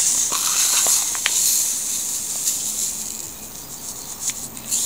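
Granulated sugar pouring with a steady hiss that is strongest over the first couple of seconds and then fades. A few light clicks come in the first second and a half.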